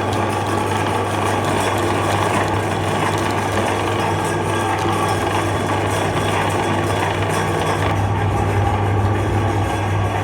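Electric meat grinder running steadily with a constant motor hum, grinding ice cream.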